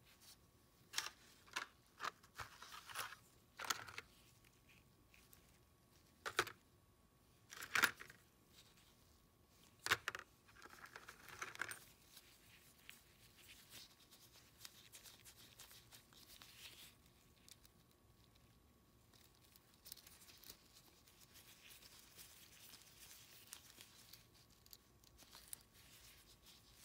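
Quiet handling of small steel sockets and square nuts in rubber-gloved hands: a string of sharp clicks as the parts knock together in the first ten seconds, then glove rustling and softer scrapes.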